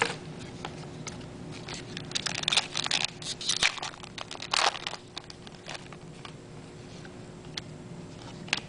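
Trading cards being handled and flipped through: a run of quick papery flicks and rustles between about two and five seconds in, with a few single flicks later.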